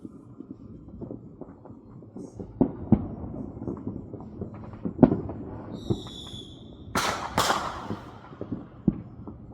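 Neighbourhood 4th of July fireworks: repeated dull booms from distant shells, a brief high wavering whistle about six seconds in, then two sharp, loud cracks of nearer firecrackers about half a second apart.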